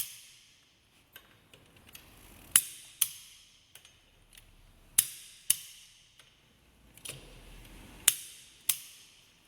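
Click-type torque wrench tightening wheel bolts to 100 N·m, giving sharp clicks as the set torque is reached, mostly in pairs about half a second apart, four times, with faint ratcheting between them.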